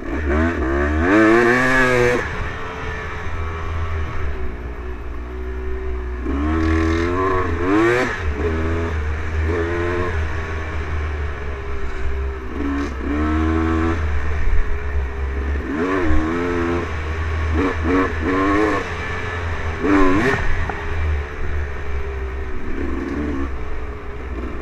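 Dirt bike engine under way on a dirt trail, revving up in rising bursts of throttle several times and dropping back in between, over a steady low rumble.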